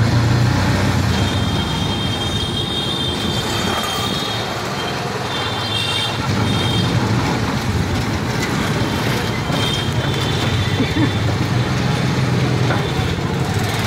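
Auto-rickshaw's small engine running steadily as it drives along, heard from inside the open cabin as a constant low hum with road noise. A high, thin tone comes and goes several times over it.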